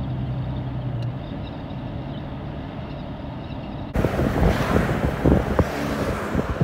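A car running with a steady low hum. About four seconds in this gives way abruptly to loud wind buffeting the microphone, with irregular low thumps.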